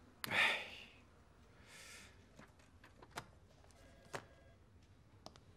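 A man's heavy sigh just after the start, followed by a softer breath near the two-second mark, then a few light clicks and taps on a desk.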